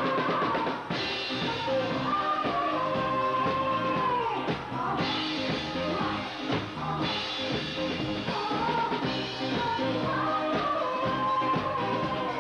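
A song: a singer's voice holding long, wavering melodic phrases over instrumental accompaniment.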